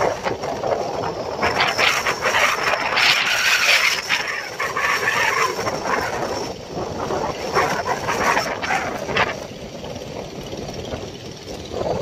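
Sea surf breaking and washing in, with the engines of outrigger fishing boats running as they come in through the waves.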